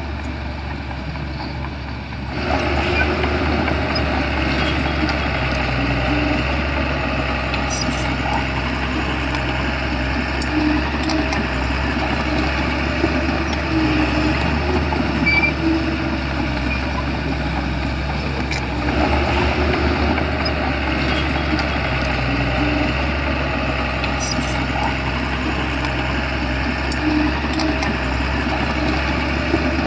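Shantui bulldozer's diesel engine running steadily, getting louder about two seconds in, with a few sharp metallic clicks.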